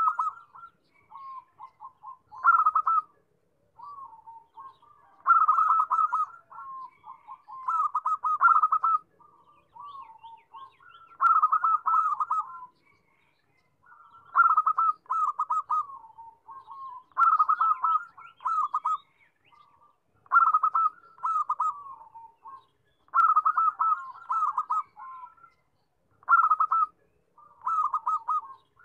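Zebra dove (perkutut) cooing: a phrase of rapid, rolling coo notes about a second long, repeated roughly every three seconds with short pauses between.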